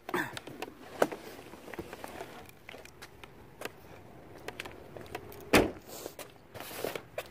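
Someone getting out of a truck: scattered knocks and rustling, then the truck door shutting with a loud thud about five and a half seconds in, and steps on pavement.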